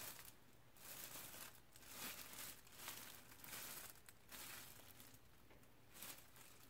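Thin clear plastic disposable gloves crinkling faintly in short, irregular bursts as the hands turn a bar of soap.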